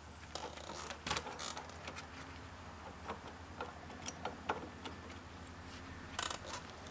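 Scattered light clicks and taps of a nut and the generator pulley being handled by hand on an air-cooled VW Beetle engine, with a faint low hum underneath.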